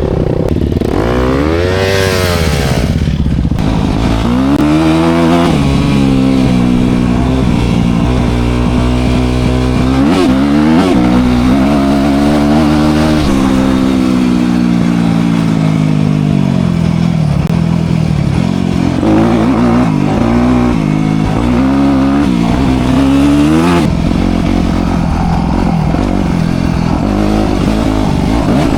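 Dirt bike engine being ridden, its note climbing and dropping again and again as the throttle is opened and closed.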